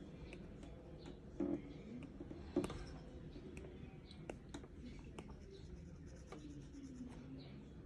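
iPad stylus tip tapping and dragging on the tablet's glass screen: light, irregular ticks over a faint steady room background, with two louder knocks about one and a half and two and a half seconds in.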